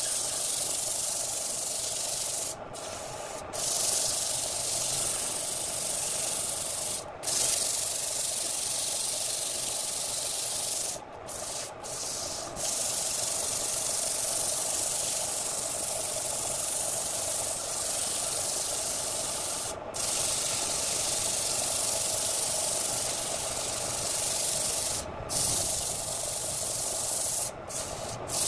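Sandpaper held by hand against a redwood vase spinning on a wood lathe: a steady hiss of abrasive on turning wood, over the hum of the lathe's electric motor. The hiss is broken by several brief gaps.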